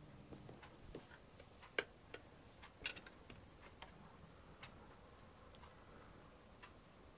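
Faint, irregular clicks and taps over near silence, the two loudest about two and three seconds in.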